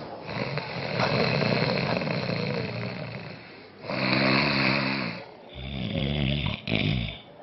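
A man snoring in his sleep: four long snores in a row, the first lasting about three seconds.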